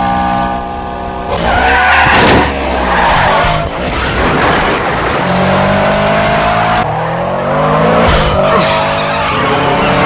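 Mitsubishi Lancer Evolution VII and Eclipse Spyder film cars racing with their engines running at high revs. A loud tyre screech and skid comes about one and a half seconds in. Later the engine pitch climbs as the revs rise, and there is more tyre noise.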